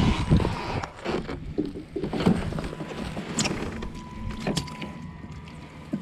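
Largemouth bass being netted and brought aboard a plastic fishing kayak: splashing and a string of irregular knocks and rustles as the net and fish hit the hull and gear. The loudest are just after the start and about two seconds in.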